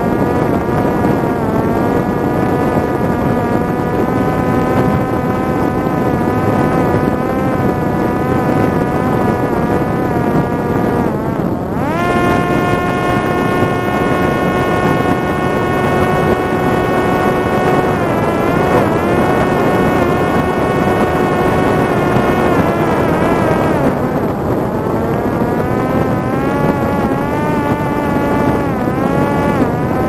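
Parrot Disco fixed-wing drone's electric motor and rear pusher propeller whining in flight over a rush of air. About twelve seconds in, the whine jumps higher in pitch and holds steady, wavers for a while, then drops back lower in the last part.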